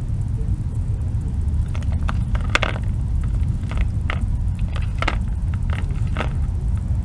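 Red fox eating from a plastic tub: a run of short, irregular chewing clicks and smacks, over a steady low rumble.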